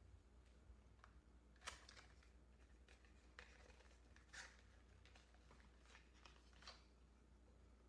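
Near silence with a low hum and a few faint clicks and rustles: small items being handled, four or five times, the clearest about a second and a half in and again near the middle.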